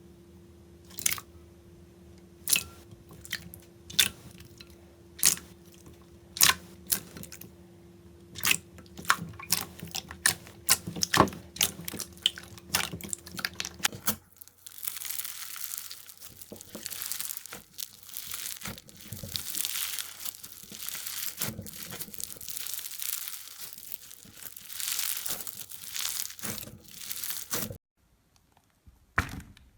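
Slime being worked by hand for ASMR: sharp pops and clicks a few times a second over a faint steady hum, changing about halfway through to a dense, continuous crunchy crackling that stops shortly before the end.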